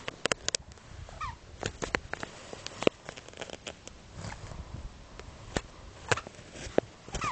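House sparrow giving a short falling chirp about a second in and another near the end, amid a run of sharp, irregular taps.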